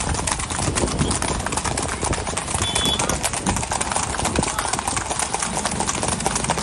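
Hooves of several ridden horses clattering on a concrete road: a dense, continuous clip-clop of many overlapping hoofbeats as the group moves along at speed.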